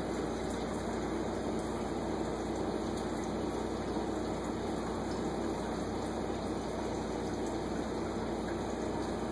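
Reef aquarium equipment running: a steady hum from the pumps under a constant rush of circulating water.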